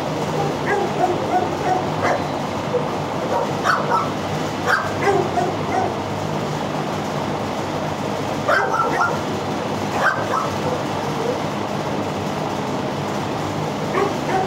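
Shelter dogs barking and yelping in scattered short bursts, a few calls at a time, over a steady background hum.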